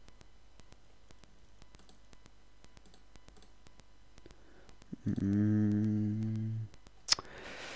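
Computer mouse clicking several times. About five seconds in, a person's voice hums a long "mmm" on one pitch for about a second and a half, and a sharp click follows just after it.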